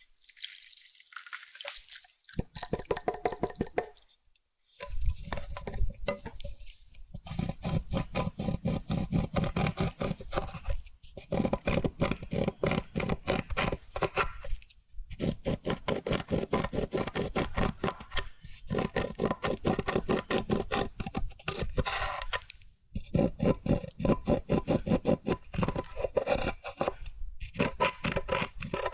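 Clear slime being worked by hand, squished, stretched and folded, giving dense runs of small wet pops and clicks. The runs break off in brief pauses every few seconds.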